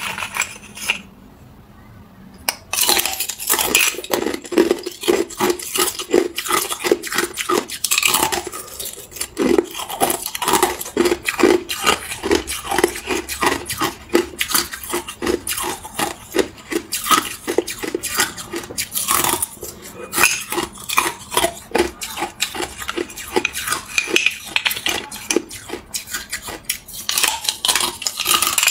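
Hard clear ice being bitten and chewed close to the microphone: a steady run of sharp, irregular crunches and cracks, starting about two and a half seconds in after a quieter moment.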